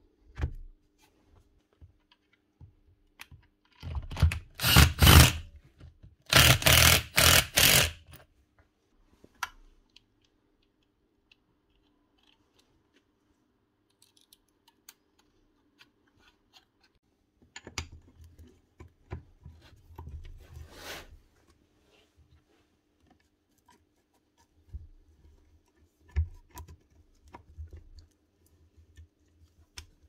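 Hands reassembling a Rotabroach magnetic drill: metal parts clicking, scraping and knocking as the motor unit is fitted back onto its slide. Two loud bursts of noise, each over a second long, come about four and six seconds in, over a faint steady hum.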